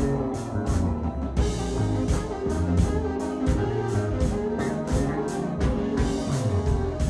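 Live band playing an instrumental funk-jazz groove: drum kit with an even cymbal pulse of about three hits a second, electric bass and keyboards.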